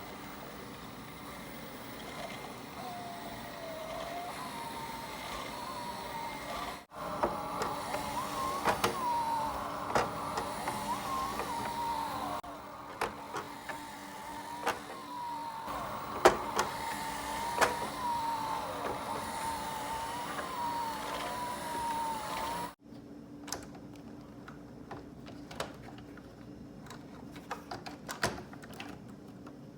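4moms MamaRoo 4 infant seat running, its electric drive motor whining with a wavering pitch while the mechanism gives sharp clicks and knocks every second or two. This is the loud clicking/banging fault that occurs during operation. After a sudden cut near the end, only faint scattered ticks remain.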